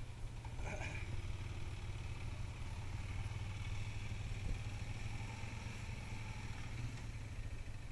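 ATV engines idling steadily.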